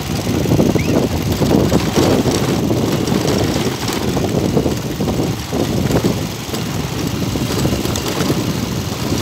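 Motor vehicle running while moving along a dirt road, with a dense, fluctuating rumble of wind on the microphone.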